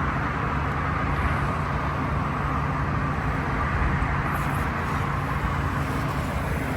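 Vehicle running steadily: a low engine-like hum under a steady higher whine and road noise, with no clear rise or fall.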